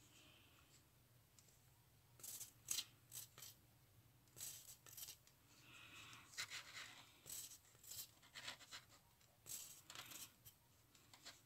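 Nearly empty plastic squeeze bottle of white craft glue being squeezed, sputtering air in faint, short hissy spurts at irregular intervals from about two seconds in: the glue barely flows, the bottle is close to running out.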